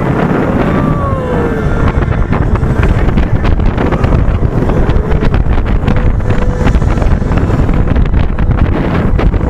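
Intamin launch coaster train running fast along the track: heavy wind buffeting the microphone over a steady rumble and rattle from the train. A brief rising-then-falling tone sounds about a second in.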